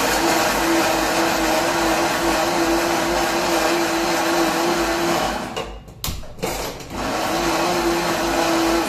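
Electric mixer grinder (mixie) running at full speed, grinding the cooled cooked gravy base into a paste. It cuts out briefly a little past halfway, with a click, and starts again.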